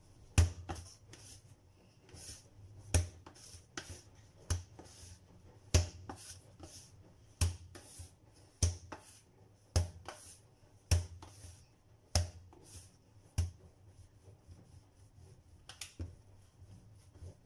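Sticky bread dough being kneaded by hand on a stone countertop: a dull thump each time it is pushed and slapped down, about once every second or so, fewer near the end.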